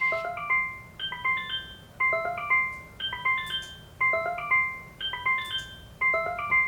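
Sony BSP60 alarm ringing: a short, bright chime figure of quick bell-like notes that repeats about once a second.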